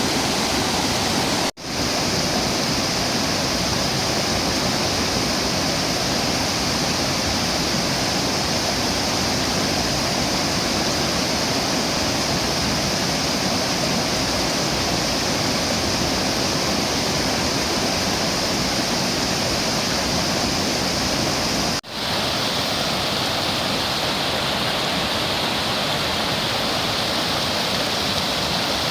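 Tat Ton Waterfall, a broad, low cascade, rushing steadily. The sound drops out briefly twice, about a second and a half in and again about three-quarters of the way through, where the recording is cut.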